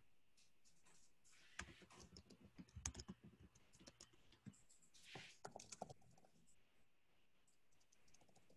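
Faint computer keyboard typing: two short runs of keystrokes, one about a second and a half in and another about five seconds in.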